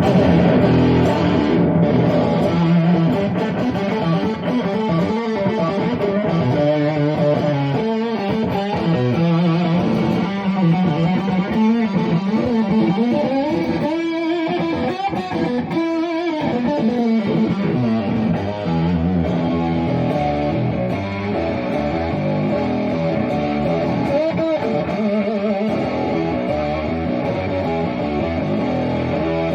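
Electric guitar played through effects pedals, continuous rock riffing with a thick, layered tone and notes gliding in pitch around the middle.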